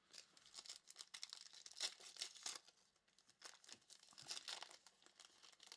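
Faint crinkling and tearing of a foil trading-card pack wrapper being ripped open, in two spells of quick crackles with a short pause about three seconds in.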